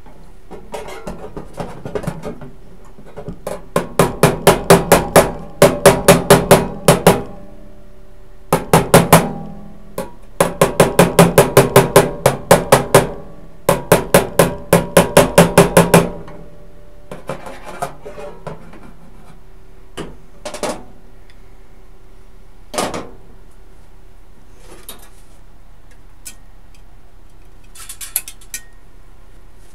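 Hammer striking sheet metal in quick runs of sharp blows, about six a second, five runs in all, then a few single knocks spaced well apart.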